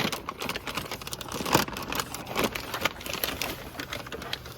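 Plastic packaging crinkling and rustling in irregular crackles as a new car part is unwrapped, with one sharper crackle about one and a half seconds in.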